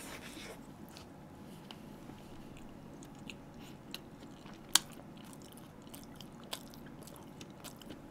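A person biting into a grilled toast sandwich, then quietly chewing it with faint wet mouth clicks; one sharper click a little past the middle.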